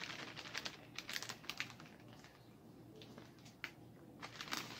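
Granular organic fertilizer poured from a plastic bag into a plastic measuring scoop: a quick run of light ticks and crinkles for about two seconds, then a few scattered ones near the end.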